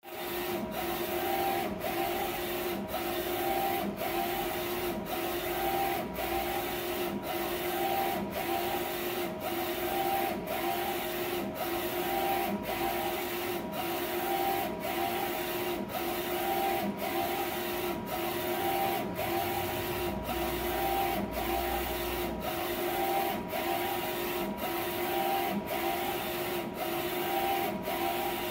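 Wide-format roll inkjet printer printing: the print-head carriage shuttles back and forth across the media with a steady motor whine. There is a short break at each turn, about twice a second, in an even, repeating rhythm.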